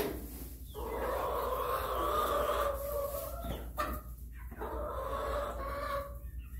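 Silkie rooster crowing twice: two long drawn-out calls, the first starting about a second in and lasting about two and a half seconds, the second shorter.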